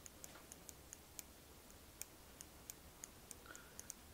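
Faint, irregular light clicks and ticks from handling a small aluminium cylinder head with its valves, springs and cotters fitted.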